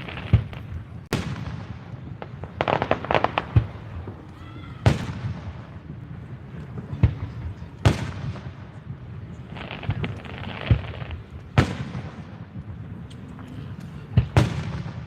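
Aerial fireworks shells bursting: sharp booms a second or a few seconds apart, each trailing off in an echo, with two stretches of rapid crackling from crackle-effect shells.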